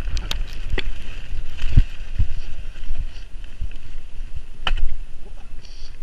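Mountain bike riding fast downhill over a rough dirt trail: tyres rolling over dirt and leaves with a heavy wind rumble on the camera microphone, and the bike knocking and rattling over bumps, several sharp knocks along the way, loudest near the start and about five seconds in.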